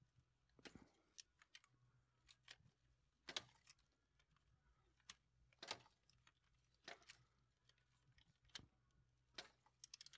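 Click-type torque wrench used as a ratchet to run down a lifter bolt, its ratchet pawl giving faint, irregular clicks, some in quick little runs.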